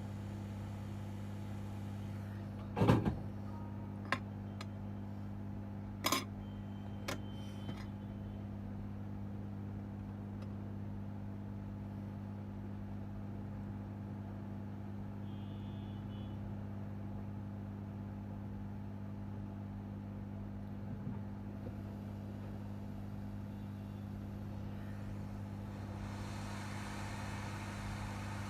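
Steady low electrical hum, with a few sharp clicks and knocks of handling within the first eight seconds, the loudest about three seconds in.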